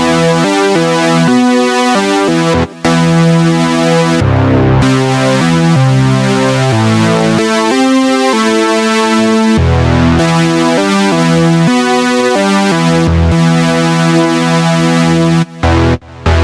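Keyboard synthesizer playing sustained chords over a stepping bass line, with short breaks about three seconds in and again near the end.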